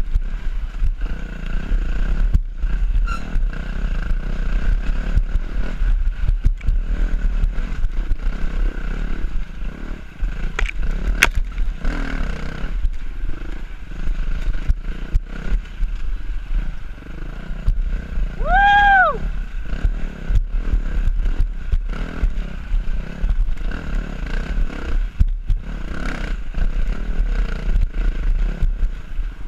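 Dirt bike engine running and revving as the bike rides along a rough forest trail, with frequent knocks and rattles from the ride. About two-thirds of the way through, a brief high tone rises and falls.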